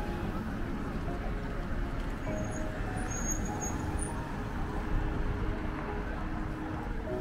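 City street traffic: cars passing through an intersection, a steady hum of engines and tyres on the road.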